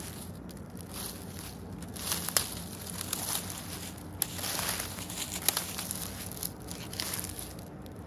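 Footsteps crunching through fallen oak leaves and twigs on the forest floor, a crunch about once a second with an occasional sharp snap.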